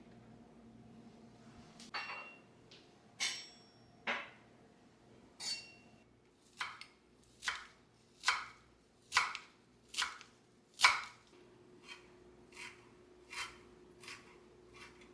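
A knife chopping on a cutting board: about fifteen even, unhurried strokes, roughly one a second, starting about two seconds in and softening toward the end.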